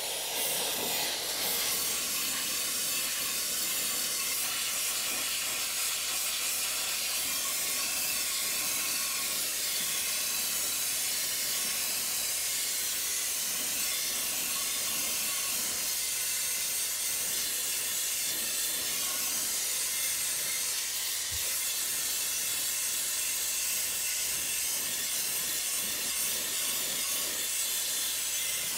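Wet sandblasting: a pressure washer's sand-blasting nozzle spraying a steady, hissing jet of water and sand against a rusty steel frame and rear differential to strip it to bare metal.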